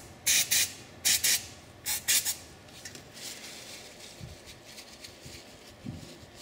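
Several short blasts of aerosol brake cleaner onto a brake caliper slider pin in the first couple of seconds, then a shop rag rubbing the pin clean.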